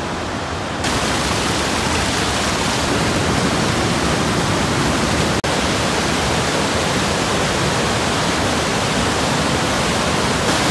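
Cummins Falls and the white-water rapids below it, a steady rushing of falling water. The sound steps up a little about a second in and cuts out for a split second about five seconds in.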